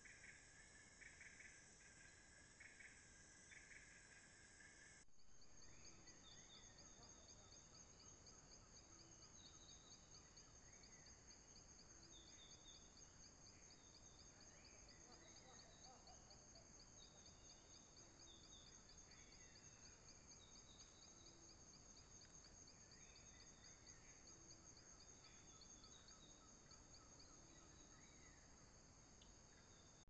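Faint tropical forest ambience of insects and birds. For the first five seconds insects trill steadily with a pulsing chirping under it; then it changes abruptly to a fast, even, pulsing high insect trill with scattered short bird chirps and whistles.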